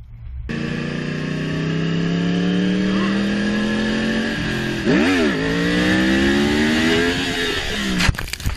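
Motorcycle engine pulling hard, its pitch climbing steadily, with a brief dip and recovery about five seconds in as if through a gear change. It breaks off near the end among a few sharp knocks.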